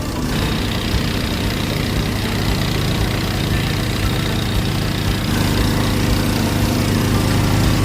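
Portable 3 kW gasoline generator engine running steadily, with a hiss that joins in just after the start and continues over it.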